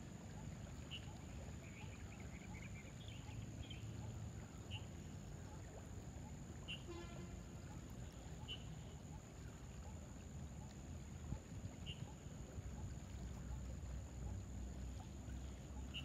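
Faint riverside ambience: a low steady rumble of the river's water, with short high bird chirps every second or two and a brief rapid rattle about halfway through. A steady thin high tone runs underneath.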